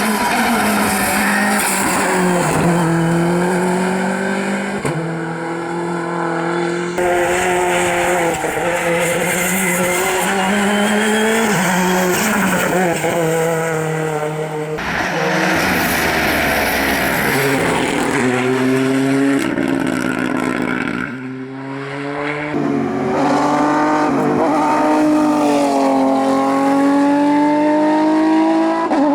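Rally cars at full attack on a tarmac stage, engines revving hard and dropping with each gear change and braking point, with some tyre squeal, in several short clips cut together.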